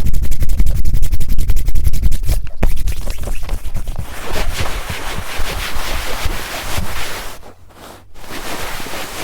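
Fast, rhythmic scratching right on a TASCAM recorder's microphones, heavy in the low end. After about two and a half seconds it eases into a softer, hissing rub, which drops away briefly about seven and a half seconds in before going on.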